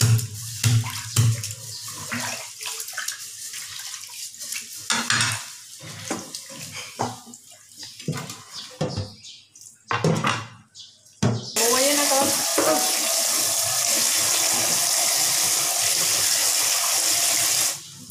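A cleaver thumps through raw chicken on a wooden cutting board, with irregular knocks and clicks as the pieces are handled. About eleven seconds in comes a steady rush of running water, rising in pitch at first, and it cuts off shortly before the end.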